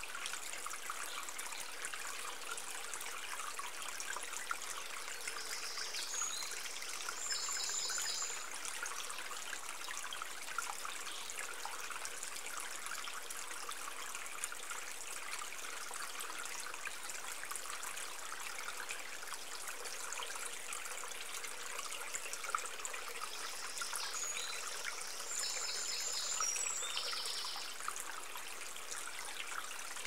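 Small stream trickling steadily over rocks. Brief high chirping comes twice, about six seconds in and again a few seconds before the end.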